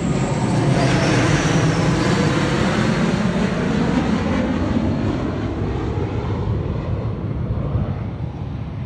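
Airplane passing overhead: a steady engine rumble that is loudest about a second in, then slowly fades away.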